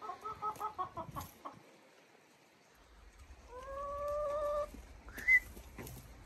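Backyard hens clucking: a quick run of about half a dozen clucks, then one long drawn-out call about halfway through, and a short high squawk near the end, the loudest sound.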